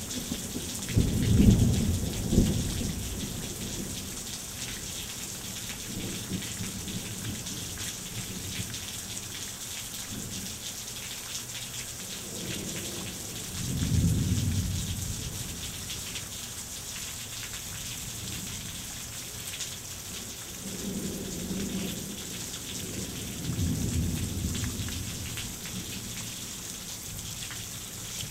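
Heavy rain pouring steadily, with rolls of thunder: the loudest rumble comes right at the start, another about halfway through, and weaker ones near the end.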